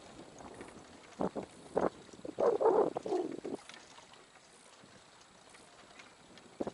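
Small waves slapping and sloshing against a moored fishing raft: a few short splashes about a second in, a longer slosh around the middle, then only faint background.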